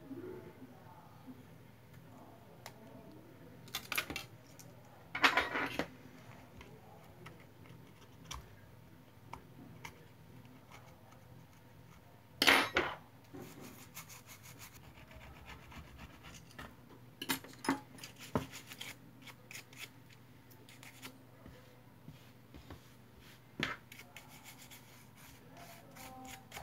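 Hands and small tools working on a phone's bare frame: intermittent scraping and rubbing as a toothbrush scrubs old adhesive off, broken by scattered sharp knocks and clicks, the loudest about 5 and 12 seconds in. A faint steady hum runs underneath.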